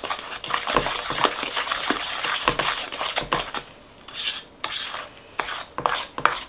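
Wooden spoon beating an egg into a thick butter, sugar and molasses mixture in a ceramic bowl: steady scraping, with the spoon knocking against the bowl. After about three and a half seconds it turns into sparser separate strokes.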